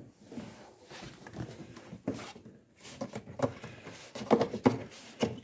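Gloved hands handling the plastic cowl cover below the windscreen and pressing its rubber seal back into place: rubbing and scraping of plastic and rubber, with a cluster of sharp clicks and knocks near the end as the seal is reseated.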